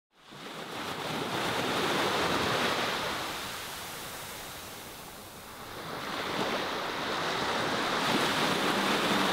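Sea waves washing on a shore. The rush fades in, swells, ebbs about five seconds in, then builds again.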